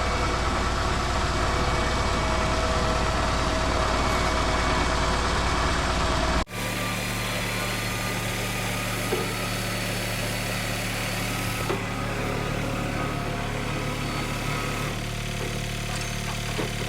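A vehicle engine running steadily, with a hard cut about six and a half seconds in to a steadier, lower idling hum.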